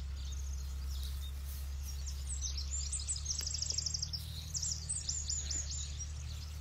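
Birds chirping, with a fast trill of short repeated notes about halfway through and scattered calls after it, over a steady low background rumble.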